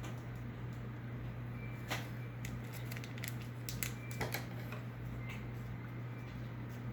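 Pokémon trading cards being handled and flipped through: scattered light clicks and rustling over a steady low hum.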